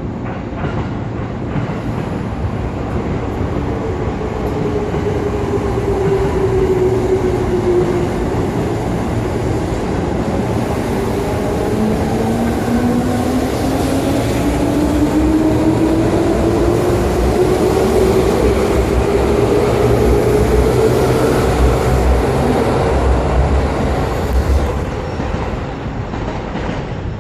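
JR 205 series electric multiple unit pulling away from a station and accelerating. The motor and gear whine rises steadily in pitch and the running noise grows louder, with wheel clatter over the rail joints.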